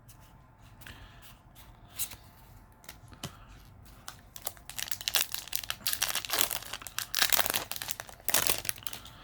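A foil trading-card booster pack wrapper being torn open and crinkled: a few soft clicks, then from about halfway in a dense run of rapid crackling lasting about four seconds.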